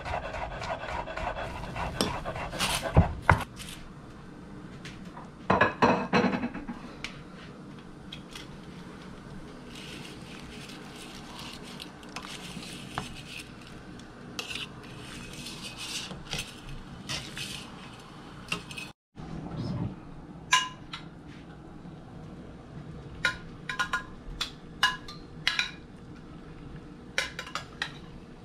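A chef's knife chopping garlic on a wooden cutting board gives a quick run of sharp knocks at the start. Later, metal tongs clink against a stainless steel pot as linguine is lifted and stirred in boiling water, with repeated short metallic clicks in the last third.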